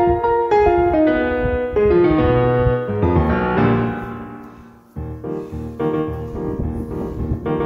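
Piano music: a descending run of notes that fades out about five seconds in, then a new phrase begins.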